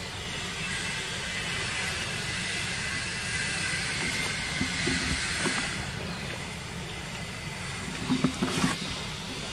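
A steady outdoor hiss that swells and then fades, with a faint high tone running through it, and a few soft knocks near the end.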